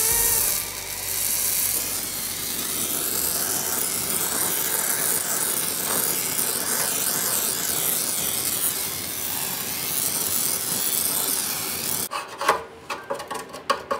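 Oxy-acetylene torch flame hissing steadily while it heats a soldered joint on an oil pan, after a brief louder rush at the start. The hiss cuts off suddenly about 12 seconds in, followed by a few light clicks and knocks.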